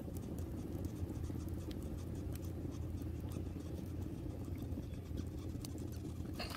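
Wood fire burning in a brick rocket stove: a steady low rumble of the draft pulling through the fire, with scattered light crackles from the burning sticks.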